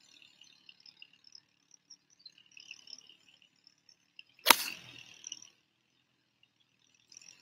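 A golf club strikes a teed-up ball on a full tee shot: one sharp crack about four and a half seconds in, with faint high chirping in the background.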